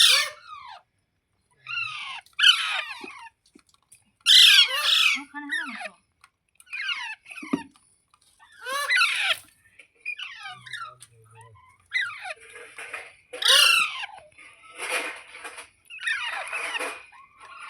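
Pet rose-ringed parakeet squawking: a series of short, harsh calls with falling pitch, about one every second or so, turning noisier and more chattering near the end.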